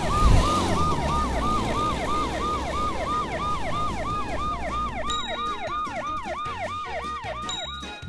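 Ambulance siren sound effect in a fast yelp, its pitch sweeping down over and over, about three or four times a second. A short whoosh comes at the very start.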